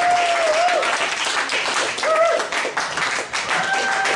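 Club audience applauding at the close of a stand-up set: steady dense clapping, with a few voices calling out over it.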